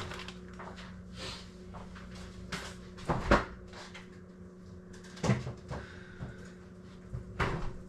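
Knocks and clunks as a food storage container is put away and a kitchen door is opened and shut. The loudest clunk comes about three seconds in, with more a little after five seconds and near the end, over a steady low hum.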